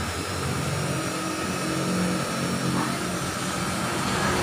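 An engine running in the background, a steady low hum.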